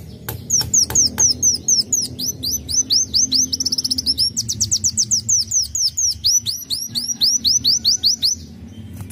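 A sunbird singing: a long run of high, sharply slurred notes at about five a second, quickening into a fast trill around the middle, then slowing again and stopping shortly before the end. A few sharp clicks come just before the song starts.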